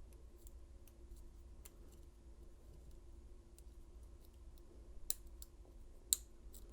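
Faint, scattered metallic clicks of a lock pick working the pins of an old Yale padlock during single pin picking, with two sharper clicks about five and six seconds in. A steady low hum runs underneath.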